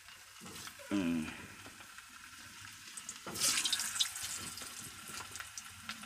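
Potato pieces dropped into hot oil in an iron kadai: about three seconds in the oil breaks into a sizzling, crackling hiss that then eases to a steadier frying sizzle.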